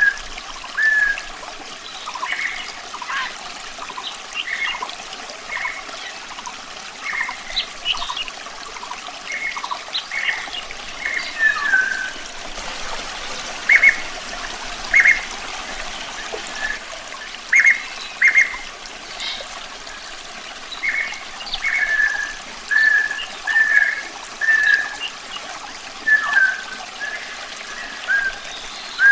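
A songbird singing runs of short whistled notes over a steadily trickling stream.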